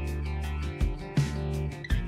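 Instrumental background music with a steady beat over sustained bass notes.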